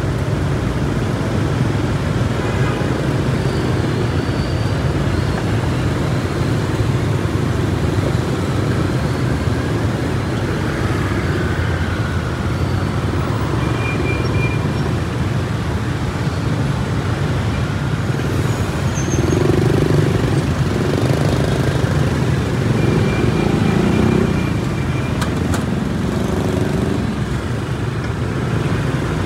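Busy street traffic heard from a motorbike in the middle of it: many motorbike and car engines running in a steady rumble, with a few short high-pitched beeps partway through.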